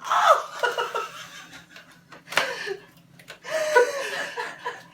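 Laughter in three bursts, snickering and chuckling, the first at the very start, a short one midway and a longer one near the end.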